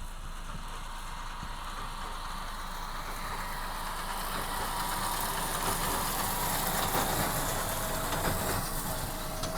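Tractor and baler working in the field: a steady machine noise that grows louder past the middle, then eases slightly near the end.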